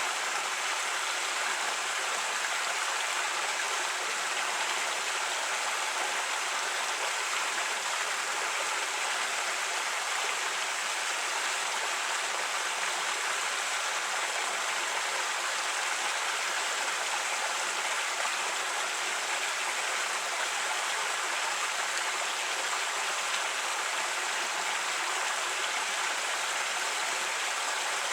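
Creek water running over rocks, a steady rushing and burbling.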